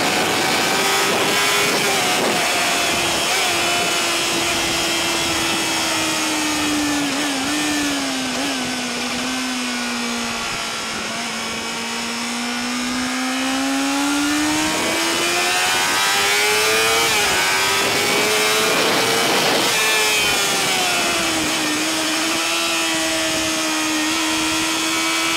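Sport motorcycle engine at high revs, heard from onboard over rushing wind. The revs fall gradually to a low point about ten seconds in as the bike slows into a slow corner, climb again under acceleration, dip briefly around twenty seconds in and then hold steady.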